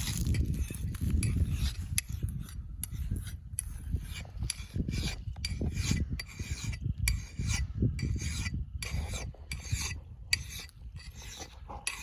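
Steel hand file pushed in repeated strokes across an axe blade to sharpen it: a rasping scrape, stroke after stroke with short irregular pauses, over a low rumble.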